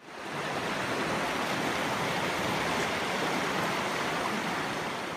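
Steady rushing noise, fading in at the start and tailing off near the end.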